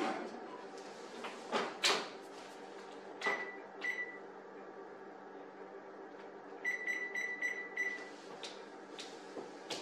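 Oven control panel beeping as its keypad is pressed to set the bake: two single beeps about 3 and 4 seconds in, then a quick run of about five beeps around 7 seconds. A couple of knocks from the oven door shutting come just before, near the start.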